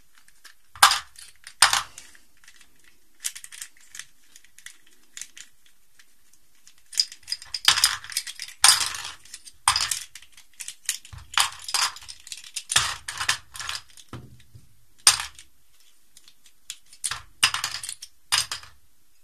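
Plastic Rubik's cube pieces clicking and clacking as they are pried loose and dropped into a bowl among other loose pieces: two sharp clicks, a few seconds' pause, then an irregular run of clatters.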